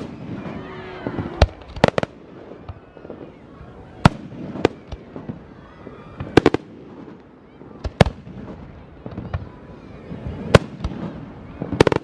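Fireworks going off: sharp bangs at irregular intervals, some in quick pairs, with a murmur of voices between them.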